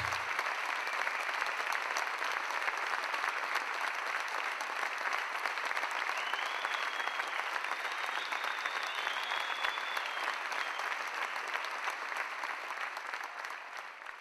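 Audience applauding steadily, with a few faint high whistles about halfway through; the applause fades away near the end.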